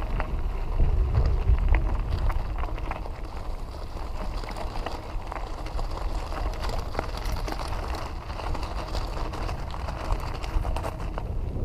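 Bicycle tyres crunching and crackling over a gravel path, with the bike rattling over the bumps and wind rumbling on the microphone.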